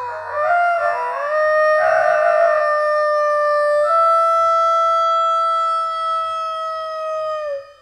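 Rooster crow slowed to a quarter of its speed: one long drawn-out call moving through a few stepped pitches, holding a steady high note from about four seconds in and cutting off near the end.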